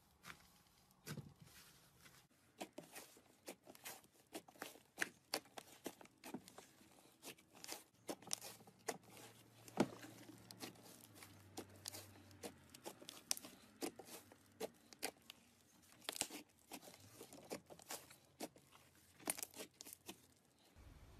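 Hands tearing apart, squeezing and pressing thick fluffy slime, which gives off a stream of irregular sharp crackles and small pops, several a second.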